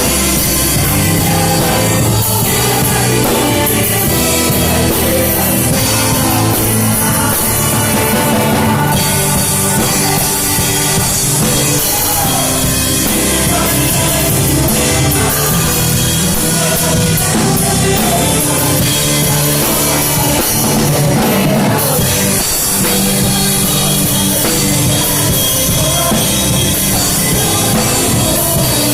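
Live church band and orchestra playing a Brazilian gospel song, with a drum kit keeping a steady beat and voices singing.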